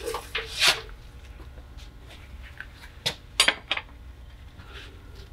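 Metal tools and parts clinking and knocking during under-car work: a few sharp clanks in the first second, then another cluster about three seconds in.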